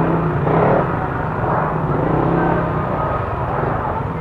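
Motor scooter engine running steadily at low speed, with street traffic noise around it.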